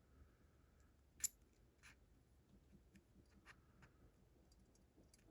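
Mostly near silence, with small clicks from handling a lock and its tools: one sharp click about a second in, then a few fainter ones.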